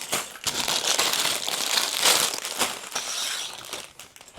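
LEGO set packaging being handled: plastic parts bags and paper crinkling and crackling, with a run of small clicks.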